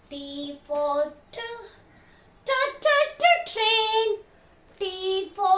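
Voices singing an alphabet phonics song in short sung phrases with brief pauses between them.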